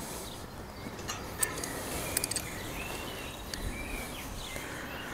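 Birds chirping faintly, with a few light metallic clicks from spanners on the nut of a split bolt wire clamp as it is done up.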